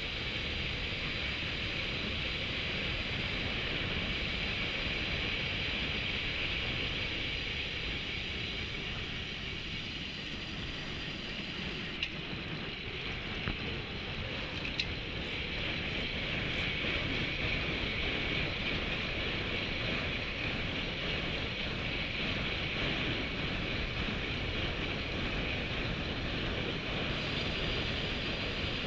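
Steady rush of wind on the microphone, with tyre noise on asphalt, from a road bike riding at about 40 km/h. A few faint clicks come near the middle.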